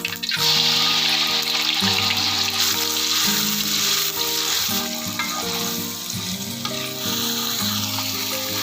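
Food sizzling as it fries in hot oil in a pan, loudest at the start, with gentle background music underneath.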